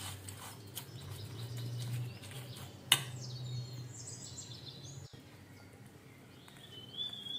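Steel spoon stirring a chaat mixture of chopped onion, tomato and fried savoury mix in a stainless steel bowl, with faint scraping clicks and one sharp clink of spoon on bowl about three seconds in. A low hum runs under it and stops about five seconds in, and faint bird chirps are heard in the background.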